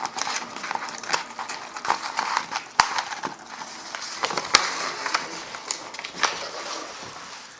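A sheet of paper being handled and folded, rustling and crinkling in irregular bursts with sharp creasing snaps, two of them louder about a third and two-thirds of the way through.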